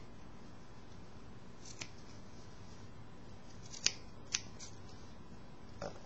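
Scissors snipping through fabric in a few separate cuts: a faint snip about two seconds in, two sharper snips close together about four seconds in, and another near the end.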